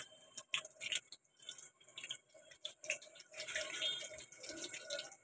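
Faint, irregular crackles and small pops of hot oil in a wok as a crumb-coated roll fries.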